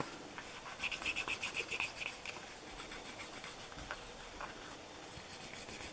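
Grooved wooden burnisher rubbed quickly back and forth along the edge of a leather piece, burnishing it smooth: faint rubbing, with a run of rapid, even strokes about a second in.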